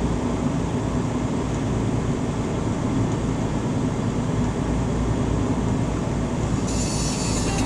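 Steady low road and engine drone inside a vehicle driving on the highway. Near the end, a brighter hiss joins it.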